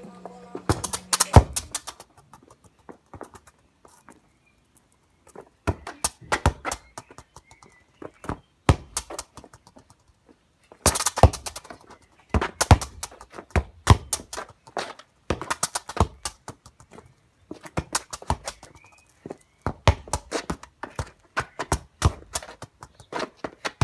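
Bursts of irregular knocks and thuds, several a second, broken by short pauses.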